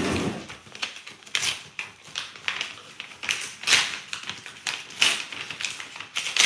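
Gift packaging being opened by hand: irregular rustling and crinkling of paper and plastic, with sharp crackles every half second or so.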